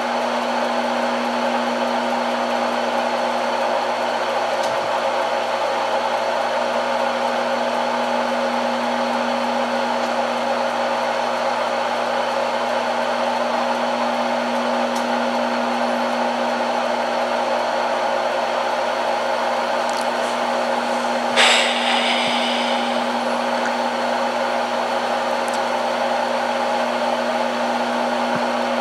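Microwave oven running with a steady hum while it heats egg rolls on its popcorn setting. About 21 seconds in comes one brief, sharp sound that rings for a moment.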